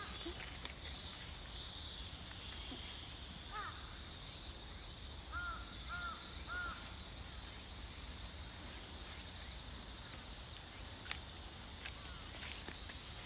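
A crow cawing: one call, then three quick caws in a row about two seconds later. Behind them is a steady high-pitched background chirr and a low rumble.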